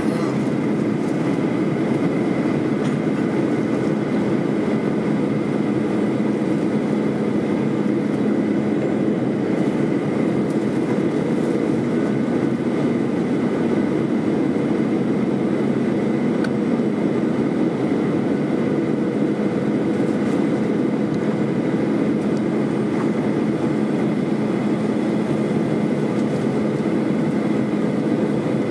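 Steady cabin drone of a jet airliner in its climb after takeoff: engine hum and rushing air, with a steady low tone and a fainter high tone.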